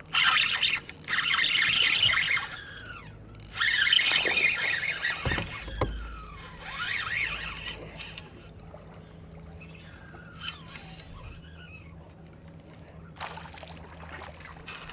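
Fishing reel squealing and whirring in bursts over the first several seconds while a hooked bass is fought, its pitch sliding up and down. A dull thump comes about six seconds in. Near the end the bass splashes and thrashes at the surface beside the boat.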